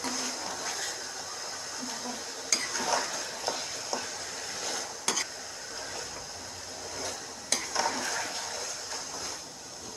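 A metal spatula stirs and scrapes chicken pieces around a metal kadhai while the oil sizzles steadily. Sharp clinks sound as the spatula strikes the pan, about every two and a half seconds.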